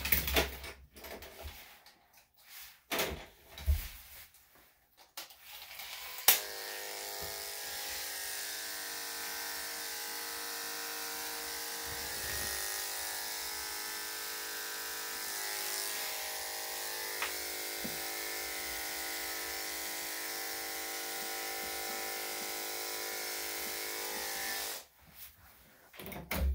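A few clicks and knocks of handling, then a sharp click about a quarter of the way in as electric dog grooming clippers with a number 10 blade switch on. They run with a steady motor hum while shaving the hair on the ear tips, and cut off near the end.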